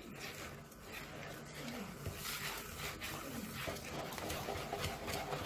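Wire whisk beating thin, freshly thinned chocolate pancake batter in a bowl: a steady run of quick wet swishes and light taps of the wires against the bowl.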